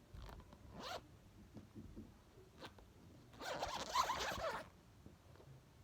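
Small zipper on a textured fidget bag being pulled open to undo the bag: a short rasp about a second in, then a longer, louder zip around four seconds.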